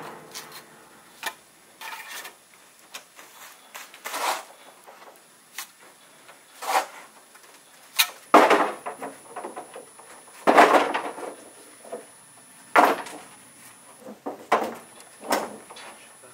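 Stonemasonry work: stone and tools knocking and scraping on wooden scaffold planks in irregular clunks, with a louder knock or scrape every two seconds or so.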